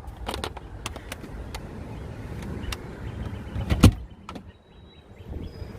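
Scattered clicks and knocks of hands handling plastic trim and parts inside a car, with one louder thump near four seconds, over a steady low rumble.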